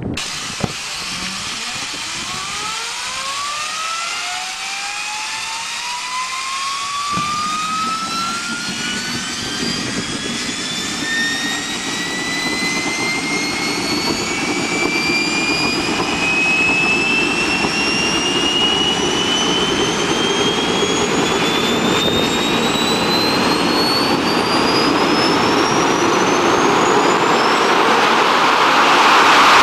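Drone jet engine on a test run, spooling up: a whine with several overtones climbs steadily from a low hum to a very high pitch, with a rushing roar that comes in suddenly about seven seconds in and keeps getting louder.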